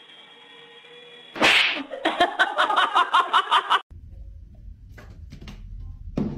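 Toy helicopter's small rotor motor whirring steadily. It is cut off about a second and a half in by a loud whoosh and a fast run of about a dozen sharp pulses, roughly six a second, which stop abruptly near four seconds. A low hum with a few faint taps follows.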